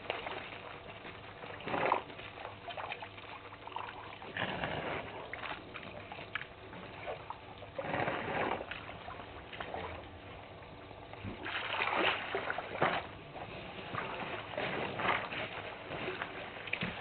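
African elephants drinking at a waterhole: water splashing, sloshing and trickling in irregular bouts as their trunks dip into the water.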